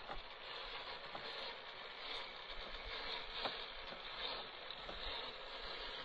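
JJRC Q65 radio-controlled Willys jeep driving on dirt and gravel: a steady, faint whirring hiss of its small electric motor and gears and its tyres on the grit, with a few faint clicks.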